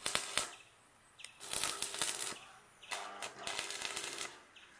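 Electric arc welding crackling in three bursts: a brief one at the start, then two longer ones of a little over a second each.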